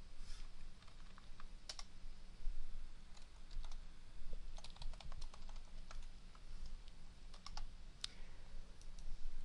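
Typing on a computer keyboard: short runs of irregular keystrokes with pauses between them, over a low steady hum.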